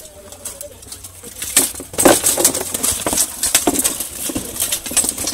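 Armoured medieval melee: steel swords and axes striking shields, helmets and plate armour in a rapid, dense clatter of metallic knocks that starts about a second and a half in.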